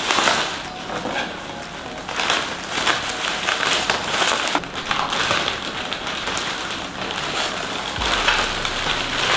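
Thick plastic bubble-wrap packaging crinkling and crackling as it is pulled apart and unwrapped by hand.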